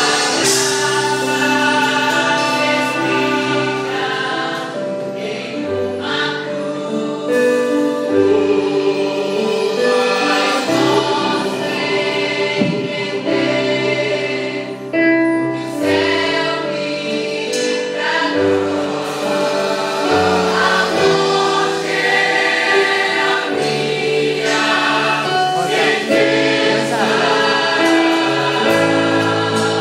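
A youth choir singing a gospel hymn in Portuguese with instrumental accompaniment, sustained sung notes over a steady bass line.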